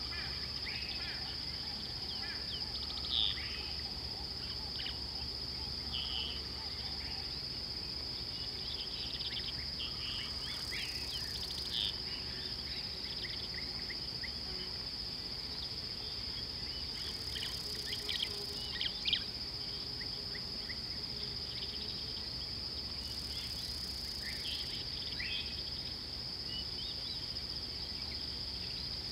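Steady high-pitched drone of insects, with short bird chirps scattered throughout.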